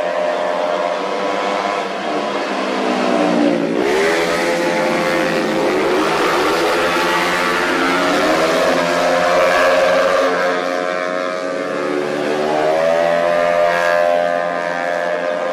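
Racing 115cc automatic scooters running hard at high revs. The engine note drops sharply and climbs back a few seconds in, and again near the end.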